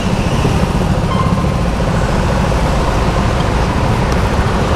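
Go-kart running, heard as a loud, steady low rumble.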